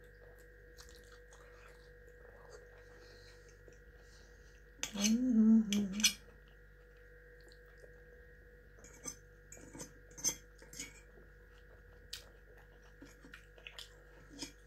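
Eating sounds: a metal fork clicking against a frying pan, with chewing, as short scattered clicks that cluster in the second half. A short pitched vocal sound from the eater comes about five seconds in, and a steady electrical hum runs underneath.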